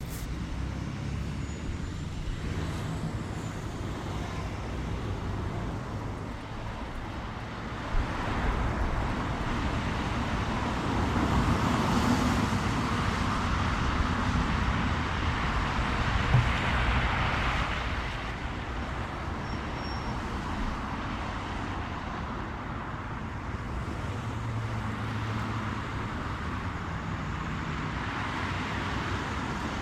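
Street traffic: a steady wash of cars passing, with engine hum and tyre noise swelling as heavier vehicles go by in the middle, and a couple of brief knocks.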